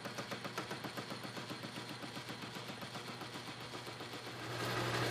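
Metal lathe spinning a steel bolt, with a rapid, even ticking of about seven a second. Near the end a louder, steady hum joins in.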